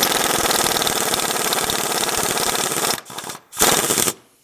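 Pneumatic impact wrench (air gun) hammering on the nut of a puller bolt, drawing a pin out of a John Deere 6300 tractor. It runs in one steady rapid rattle for about three seconds, then gives two short bursts.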